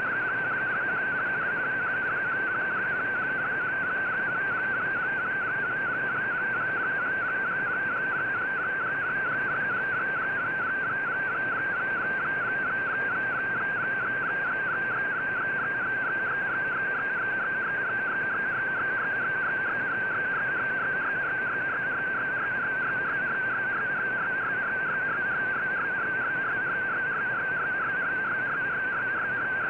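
Shortwave MFSK digital-mode data signal coming through a communications receiver: a warbling tone that hops rapidly and evenly within a narrow pitch range, over steady radio hiss.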